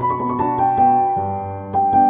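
Instrumental music with no singing: a melody of struck, sustained notes over held bass notes, the bass moving to a new note just over a second in.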